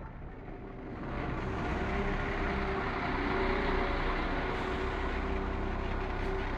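London Overground Class 172 Turbostar diesel multiple unit passing close by as it runs into the platform. Its engine note is steady, over wheel and rail noise, and the sound swells about a second in as the carriages draw level.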